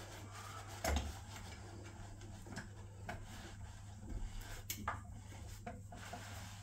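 Grips tightening the chrome nut of a bar mixer shower valve onto its wall fitting through a wad of paper towel: light rubbing and scattered small metal clicks, one sharper click about two-thirds of the way through, over a low steady hum.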